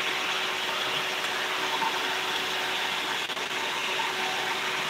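A steady, even machine whir with a faint constant hum, like a running motor, unchanging throughout.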